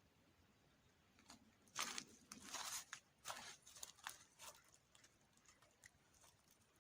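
Irregular rustling and clicking from something being handled close by, a cluster of short noises over about three seconds in otherwise near silence.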